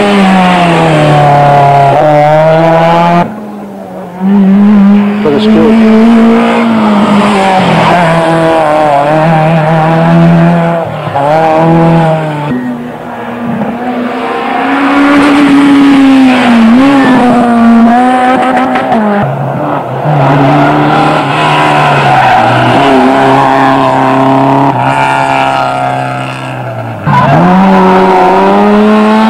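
Rally car engines revving hard as cars pass one after another on a tarmac stage, the pitch climbing and dropping again and again with gear changes and lifts off the throttle. Between cars the sound dips briefly, about three seconds in, around twelve to fifteen seconds in and near the end.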